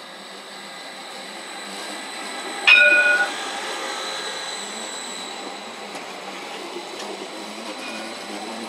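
A CAT Urbos 3 tram rolls past close by, growing louder as it comes. About three seconds in there is a brief, loud ringing tone, and a faint repeat of it comes near the end.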